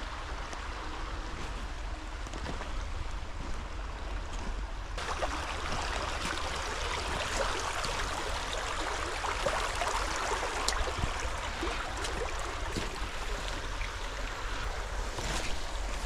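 Running water trickling and splashing, with a steady low rumble underneath; the water grows louder about five seconds in.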